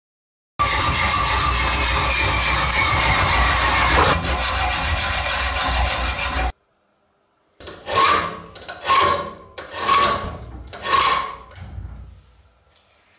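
Metal being filed on a small steel bracket clamped in a bench vise. There is a steady rasping for about six seconds, then after a short break four slow file strokes about a second apart.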